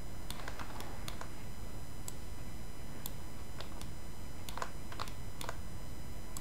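Irregular light clicks of a computer keyboard and mouse, about a dozen, a few louder ones near the end, over a steady background hiss.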